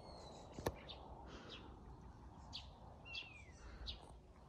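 Small birds chirping with short repeated calls and one falling whistle, over a low, steady wind rumble. A single sharp click just under a second in is the loudest sound.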